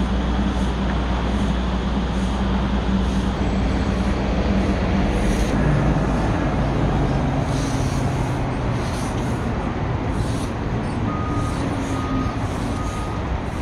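Volvo wheeled excavator running steadily while its tree-shaker head shakes a ginkgo tree, with street traffic behind. The drone drops to a lower pitch about five and a half seconds in, and near the end three short beeps sound about a second apart.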